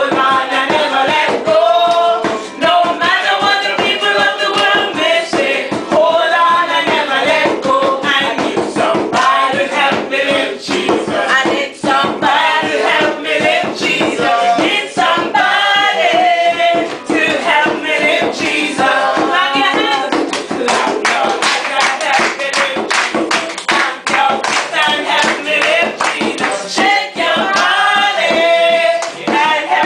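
Upbeat pop song with a lead singer over a steady beat.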